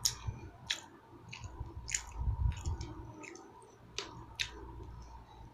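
Close-miked chewing of food, with irregular sharp clicks and small crunches from the mouth.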